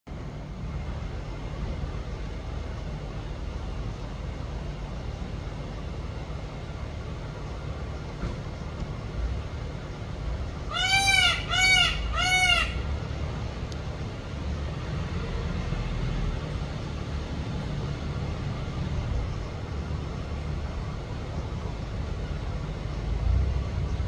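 Indian peafowl (peacock) giving three loud calls in quick succession about halfway through, each rising then falling in pitch, over a steady low rumble.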